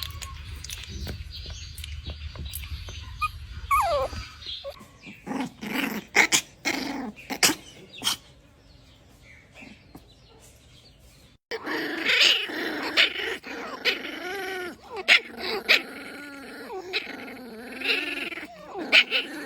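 Puppy growling and whimpering in protest. There are several short sharp sounds in the first half, then a long wavering grumble that rises and falls in pitch through the second half.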